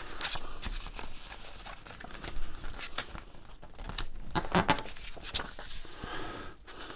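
Paper rustling and crinkling as a small printed instruction booklet is handled and its pages are turned, in scattered short rustles.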